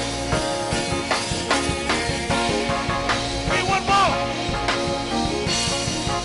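Worship music with sustained chords over a steady drum-kit beat, with a brief gliding vocal line about halfway through.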